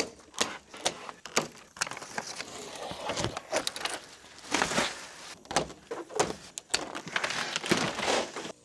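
Handling noise from large framed solar panels being lifted off a pallet: a scattered run of sharp knocks and clicks mixed with short scraping and rustling sounds.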